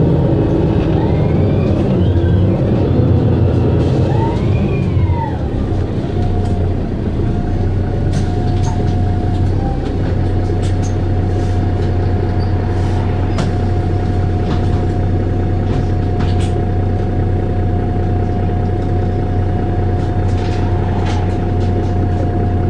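Mercedes-Benz O530 Citaro city bus engine idling with a steady low drone. A steady whine joins it about six seconds in, and a few faint clicks come and go.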